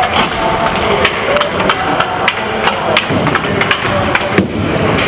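Ice hockey play: repeated sharp clacks and knocks of sticks and puck, with background chatter from the rink.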